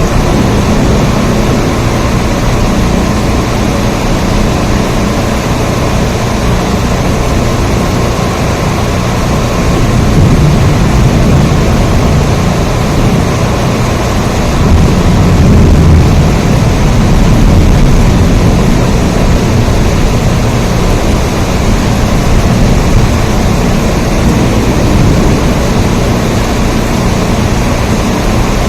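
Steady heavy rain, a dense even hiss over a deep rumble that swells louder for a few seconds around the middle.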